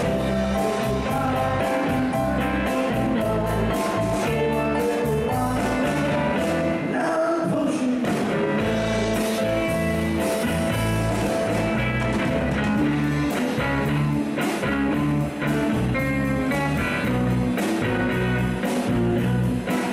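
Live band playing an upbeat blues/R&B number, with electric guitar, bass and drums keeping a steady beat.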